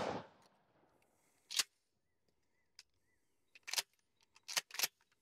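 The report of a Mossberg 590 Cruiser pump shotgun dies away at the very start. Then come sharp metallic clacks from the gun's action: one about a second and a half in, a faint click, then two quick pairs near the end as the pump is worked.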